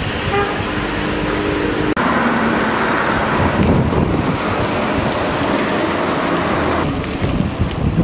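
Road traffic noise: a steady droning tone for about the first two seconds, then the even rush of traffic on the road.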